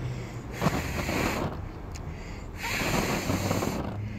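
A person blowing gently at the flame of a wax-and-cotton-wool firelighter in a tea-light tin: two breaths of about a second each, about a second apart, a rush of air like a gust of wind.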